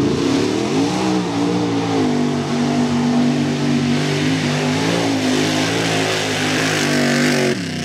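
Lifted mud truck's engine revving hard as it churns through a mud pit: the revs climb in the first second, then hold high with small rises and dips, and the sound cuts off suddenly near the end.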